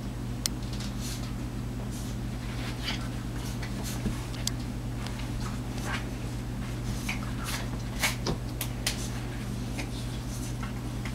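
Yorkshire terrier and German Shorthaired Pointer play-fighting: scattered short scuffling noises, the loudest about eight seconds in, over a steady low hum.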